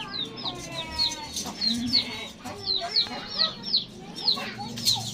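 Birds chirping over and over, short high falling chirps about two or three a second, with a longer, steadier call about a second in.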